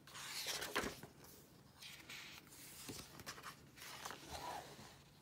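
Paper pages of a picture book swishing and rustling as they are turned by hand, a few soft swishes with the loudest in the first second.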